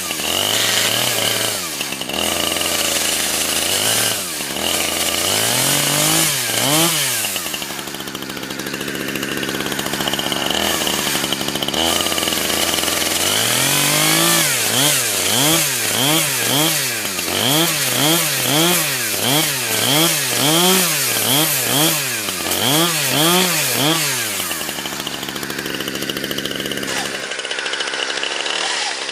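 Gasoline chainsaw blipped over and over, its engine pitch rising and falling again and again (about once a second in the middle stretch) between spells of idling, as it chews into a Samsung Galaxy S4 smartphone.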